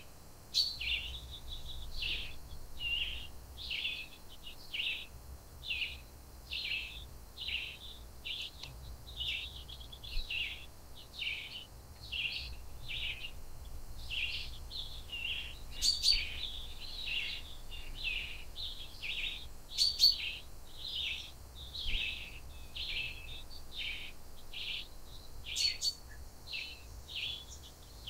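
Wild forest birds calling, a steady run of short chirps, one to two a second, with a few sharper, louder notes among them.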